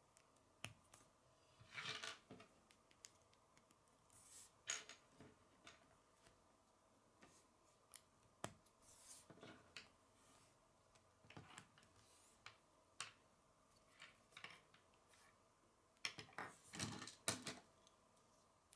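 Plastic K'nex rods and connectors being handled and snapped together: quiet, scattered sharp clicks and brief rattles, with a busier run of clicking about two seconds in and again near the end.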